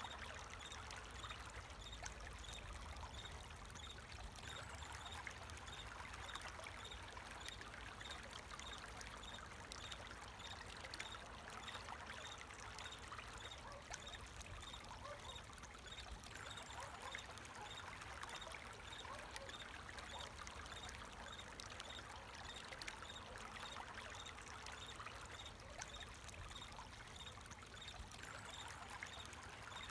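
Water flowing and trickling steadily, like a small stream, with crickets chirping in an even rhythm over it.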